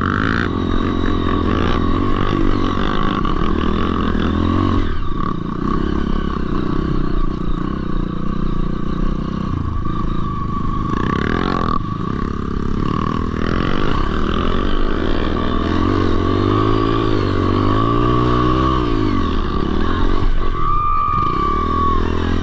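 Dirt bike engine revving up and down as the bike rides, with a steady high whine running under it.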